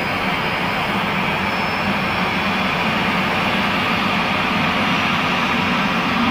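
Sukhoi Superjet 100's PowerJet SaM146 turbofan engines running at ground idle during start-up: a steady rushing noise with a faint high whine, and a low hum growing slightly louder near the end.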